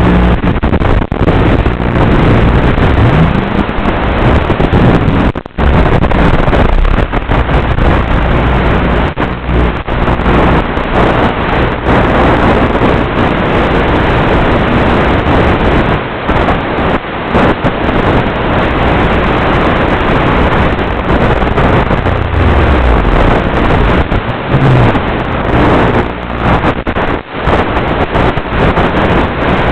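Steady loud rush of wind and the electric motor and propeller of an E-flite UMX F-27 micro flying wing in flight, picked up by its onboard FPV microphone. A faint motor pitch rises and falls a couple of times, and the sound drops out briefly now and then.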